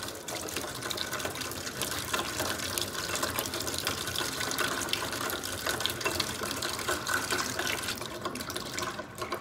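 Kitchen faucet running steadily into a stainless steel sink while hands are rubbed and rinsed under the stream; the rushing thins out near the end.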